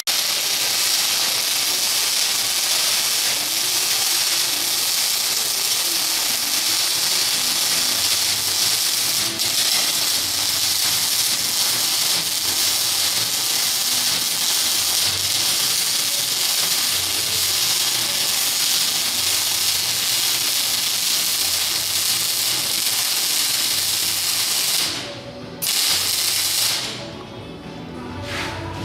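Welding arc crackling and hissing steadily. It breaks off for a moment about 25 seconds in, strikes again, and stops about two seconds later.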